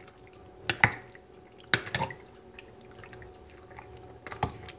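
Marinated pork innards being tossed with a spatula in a glass bowl: a few short, wet squelches and clicks of meat and marinade, about three spread through, over a faint steady hum.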